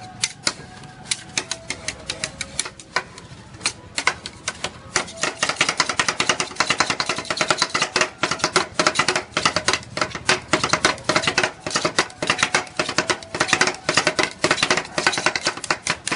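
Metal spatulas chopping and tapping on a steel ice cream cold plate to mix rolled ice cream. Sparse taps at first, turning into fast, continuous chopping about five seconds in.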